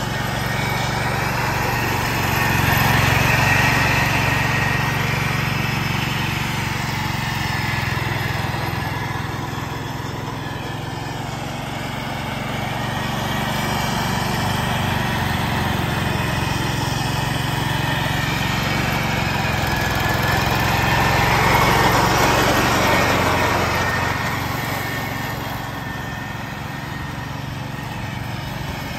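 1969 Ford 140 garden tractor's engine running steadily with its mower deck cutting through and mulching dry leaves. It grows louder and fainter as the tractor moves about, loudest about three seconds in and again about twenty-two seconds in.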